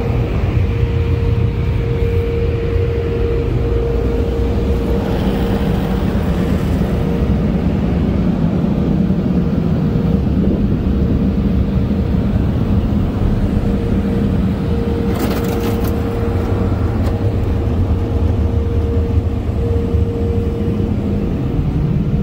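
Tommy and AVW car wash dryer blowers blasting air over the car, heard from inside the cabin: a loud, steady rush with a low rumble and a constant hum. There is a brief crackle about fifteen seconds in.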